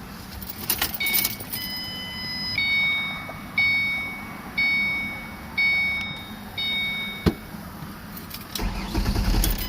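Car's warning chime sounding six times, about once a second, each ding fading out and the pitch alternating slightly from one to the next. A few clicks and rattles come just before it, and a short low rumble with clicks comes near the end.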